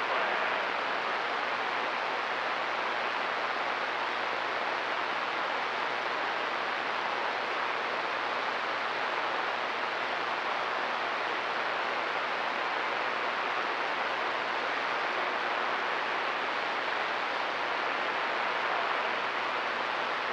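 CB radio receiver on channel 28 (27.285 MHz) hissing with steady open-squelch static: the channel is clear and no station is coming through. A faint low hum runs underneath.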